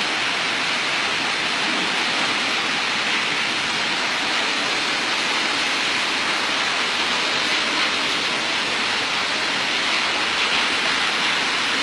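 Heavy rain pouring down in a windstorm, a steady hiss.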